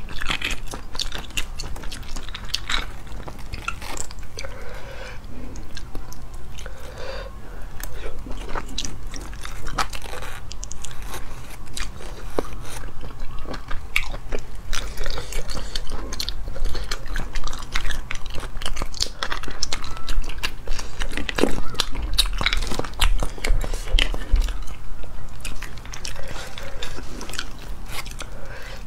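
Close-miked eating of sea snails in chili oil: chewing, biting and sucking of the snail meat, with many small sharp clicks and smacks throughout.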